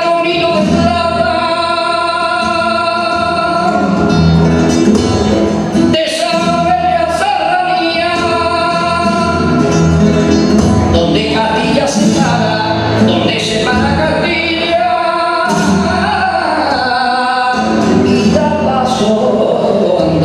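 Male flamenco singer performing cante in long, wavering, ornamented phrases, accompanied by a flamenco guitar. The phrases break briefly about six seconds in and again near the end.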